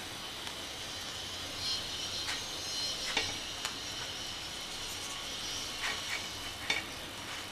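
Oil sizzling gently in a nonstick paniyaram pan as the cooked paniyaram are lifted out with a wooden spatula, with a few light clicks of the spatula against the pan.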